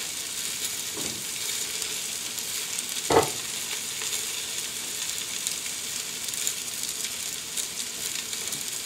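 Potatoes frying in butter and bacon grease in a lidded skillet on a wood cook stove: a steady sizzle. A single short knock about three seconds in.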